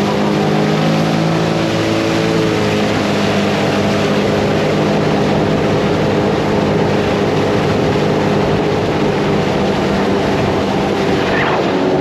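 Sea-Doo Explorer personal watercraft under way, its engine running at a steady pitch.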